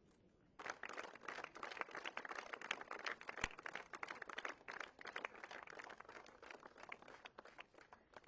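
Scattered applause from a small crowd of onlookers: many sharp irregular claps that start suddenly about half a second in and thin out toward the end.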